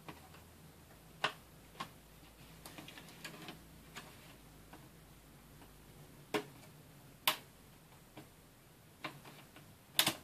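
Sharp plastic clicks and lighter ticks as the keyboard's retaining latches on an Asus X51R laptop are pried loose with a screwdriver. There are about five louder snaps, spread unevenly across several seconds.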